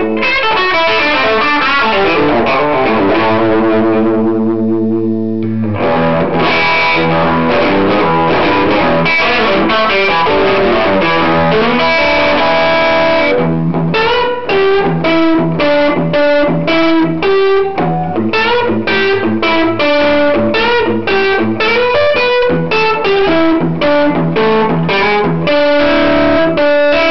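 Les Paul electric guitar played through a 1960s DeArmond R15T tube amplifier with two 6V6 power tubes and a 12-inch speaker. A chord rings out and fades over the first five seconds, then chord playing resumes. From about halfway through it turns into short, choppy rhythmic strokes.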